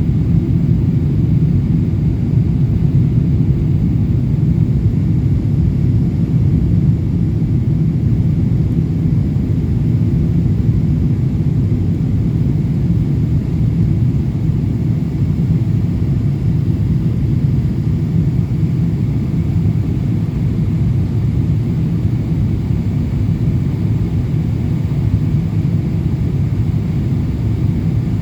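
Boeing 777-200LR airliner in flight on its way in to land: a steady low rumble of engines and airflow that does not change.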